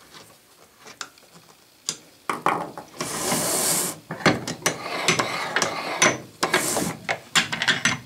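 Steel parts of a speed vise clicking, rattling and scraping as the movable jaw and its buttress-threaded lead screw with half-nut are handled and worked along the bed. The first two seconds hold only a few light ticks, and there are two spells of scraping, about three seconds in and again near the end.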